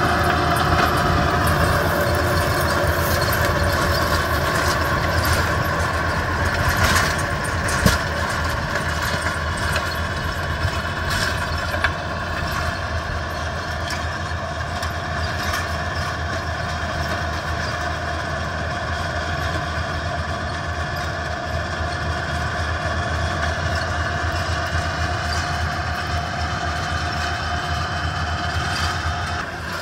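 Yanmar YT490A tractor's diesel engine running steadily while it drives a rear-mounted rotary tiller through the soil. A few short sharp knocks stand out about a quarter to a third of the way in.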